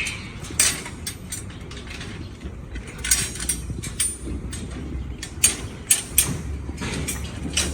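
Irregular sharp metallic clanks and clicks of hand work with steel on a construction site, about a dozen knocks at uneven intervals, over a low steady hum.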